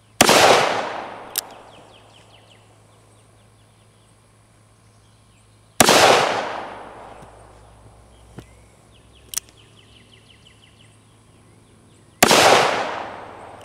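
Smith & Wesson Model 15 revolver firing .38 Special rounds: three shots about six seconds apart, each a sharp crack followed by a rolling tail that dies away over a second or so. Short, sharp clicks come between the shots.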